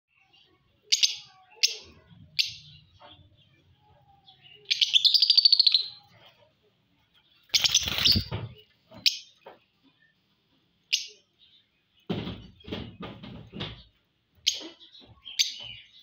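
Caged blue lovebird making sharp high chirps, with a rapid chattering trill about five seconds in. A loud flurry of wings about eight seconds in, and a run of knocks between twelve and fourteen seconds.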